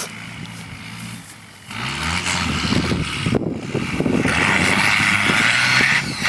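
Nissan Patrol Y61 4x4 engine revving up about two seconds in as it drives hard through mud, with a loud churning and spraying of mud and dirt thrown up around the vehicle.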